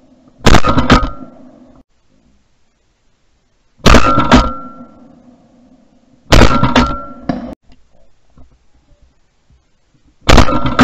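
Four shotgun shots a few seconds apart, each a sharp blast with a short ringing tail, recorded by a camera mounted on the shotgun's barrel. The tails of two shots cut off abruptly.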